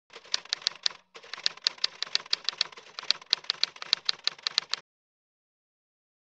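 Rapid keyboard-style typing clicks, about five or six keystrokes a second, with a brief pause about a second in, stopping abruptly near the end.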